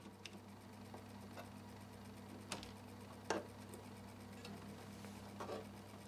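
IBM Correcting Selectric II electric typewriter switched on and idling: its motor gives a faint steady hum, with a few light mechanical clicks as the carriage and platen are handled, two sharper ones near the middle.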